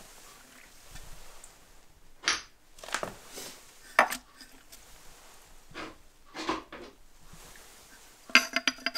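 Ceramic half-moon weighting stones being set into a stoneware fermenting crock: scattered knocks and scrapes of stone against the crock wall and against each other, then a quick run of ringing clinks near the end.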